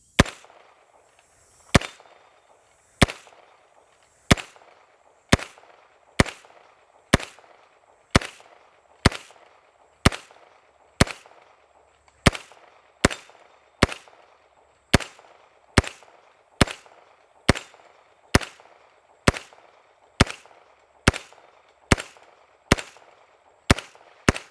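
CMMG Banshee MK10 10mm pistol-caliber carbine fired semi-automatically in a steady string of about two dozen shots, roughly one a second.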